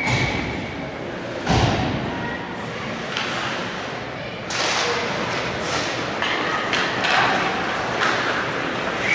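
Ice hockey play in a rink: one loud thud about a second and a half in, then skate blades scraping on the ice with players calling out.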